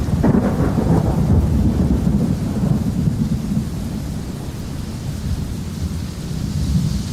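Thunder cracks just after the start and rolls off as a low rumble over the next few seconds, over steady rainfall.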